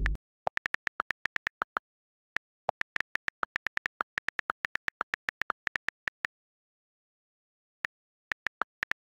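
Phone touchscreen keyboard clicks as a message is typed: runs of short, crisp clicks, several a second, broken by pauses, with a long gap about six seconds in before a few more clicks near the end.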